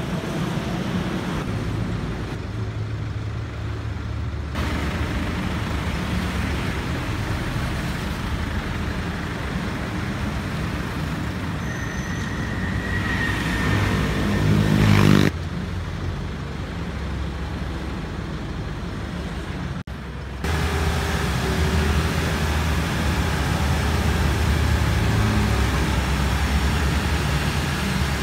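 Diesel engine of a Hyundai New Mighty N250 dump truck running, its D4CB four-cylinder diesel. The engine revs up in a rising whine that grows louder past the middle, then the sound breaks off abruptly.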